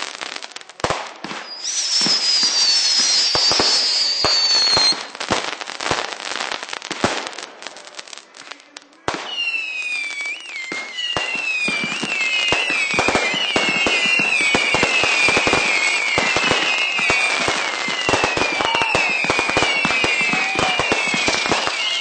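Consumer fireworks going off: rapid crackling pops throughout, a falling whistle in the first few seconds, and from about halfway on a continuous stream of overlapping warbling whistles over the crackle.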